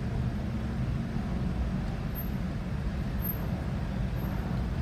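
Steady low rumble of idling car engines, heard from inside a car's cabin on a ferry's enclosed vehicle deck.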